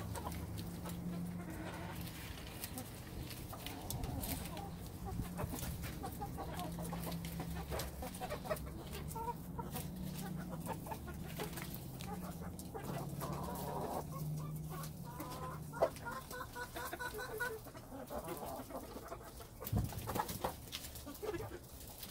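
Hens clucking in low, drawn-out murmurs as they peck at Swiss chard, with a few sharp taps in the second half.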